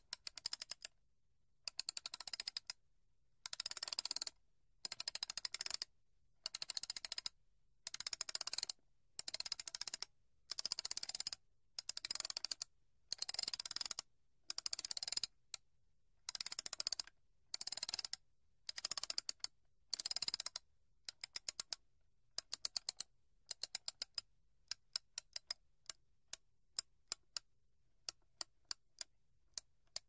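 Wind-up clock being wound: the key is turned in repeated strokes, each a short burst of fast ratchet clicking, about one stroke a second for some twenty seconds. After that come sparser, separate clicks.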